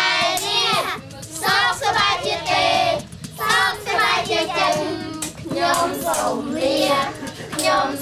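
A group of children singing an action song together, led by a woman's voice, in short phrases with brief pauses, with some hand claps.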